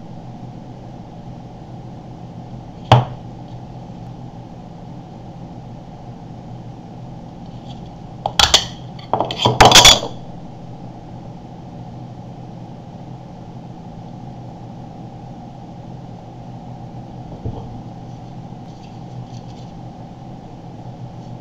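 Clicks and clatter of a plastic four-AA battery pack being handled: one sharp click about three seconds in, then a burst of clicking and rattling from about eight to ten seconds as the case is opened, with a faint click later. A steady low hum runs underneath.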